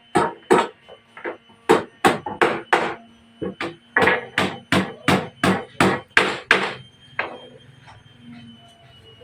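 Repeated hammer blows on wood, about two to three strikes a second in a steady rhythm, stopping about seven seconds in.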